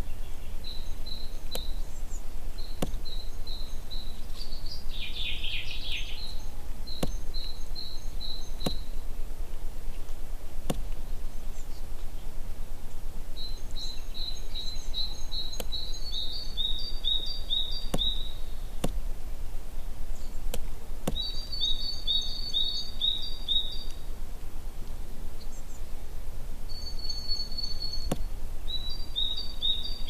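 Forest songbirds singing phrases of quick, evenly repeated high notes, every few seconds, at times two birds overlapping, over a steady low rumble.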